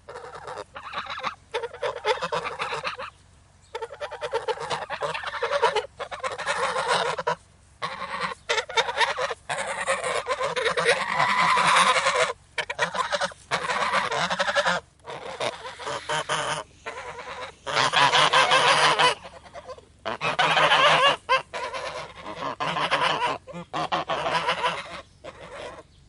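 A small flock of geese honking and calling aggressively, loud harsh honks overlapping almost continuously with a few brief pauses.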